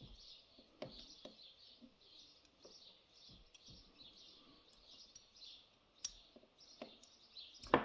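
Faint bird chirping in the background, a steady run of short high chirps several times a second. A few light clicks of small lock parts being handled, the sharpest near the end.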